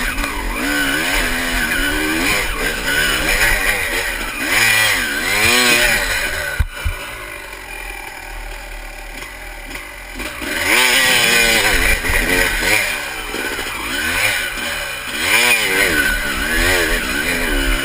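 Honda CR250 two-stroke single-cylinder dirt bike engine revving up and down again and again under load on a steep rocky climb. A sharp knock comes about seven seconds in, then the engine drops to a lower, quieter note for about three seconds before it revs hard again.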